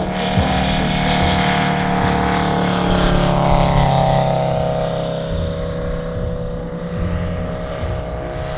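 Valach VM-250 five-cylinder radial engine of a half-scale RC biplane running at flying power as the plane passes low, its note dropping in pitch about three to five seconds in as it goes by, then running steady.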